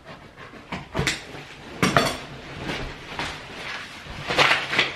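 A large sheet of old, flexible sheet flooring being lifted and folded over by hand, rustling and crackling, with sharper crackles about a second in, around two seconds in, and near the end.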